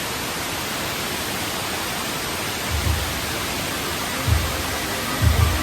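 Steady roar of Fukuroda Falls' falling water, an even rushing noise, with three short low thumps from about three seconds in.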